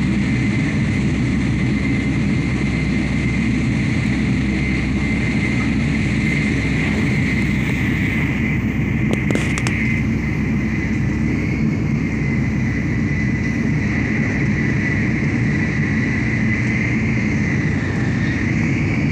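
Cabin noise of a Shinkansen bullet train running at speed: a steady low rumble with a steady high whine over it. A couple of faint clicks about nine seconds in.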